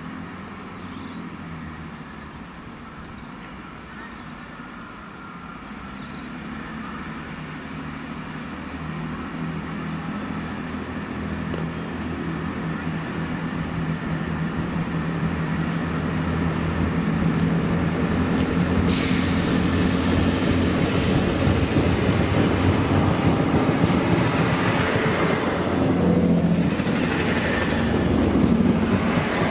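A Class 165 Turbo diesel multiple unit approaching, its engine drone growing steadily louder, then running close past with a hiss of wheel and rail noise from about two-thirds of the way through.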